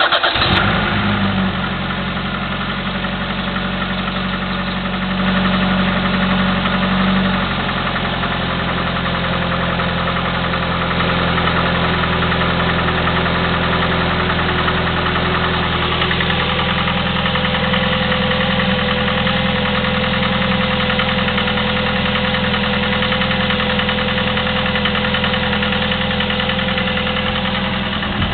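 Chevy S-10's 2.2L four-cylinder engine idling just after a start, through a Flowmaster 40 exhaust, with the valve-train clicking that the owner puts down to valves or lifters and calls common on the S-10. It runs a little louder for a couple of seconds about five seconds in, then settles to a steady idle.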